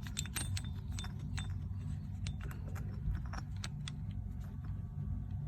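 Small metal clicks and clinks of a brake caliper piston rewind tool being handled and fitted against the caliper, a dozen or so irregular taps over a steady low hum.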